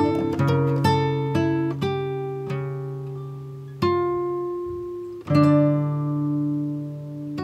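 Background music: slow, gently plucked notes that each ring and fade before the next, with a fuller chord struck about five seconds in.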